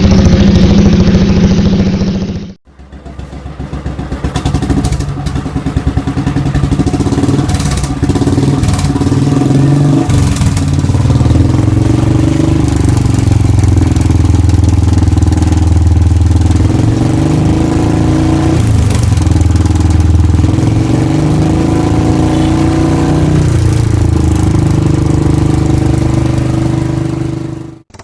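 Royal Enfield Bullet single-cylinder engine thumping through an aftermarket silencer, idling and blipped up in revs several times. About two and a half seconds in, the sound cuts off and restarts, as one silencer's recording gives way to the next.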